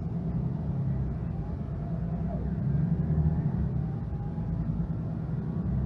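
Mercedes-Benz Citaro G articulated bus with its OM457hLA twelve-litre six-cylinder diesel running under load, a deep steady drone that swells about three seconds in and eases back a little after.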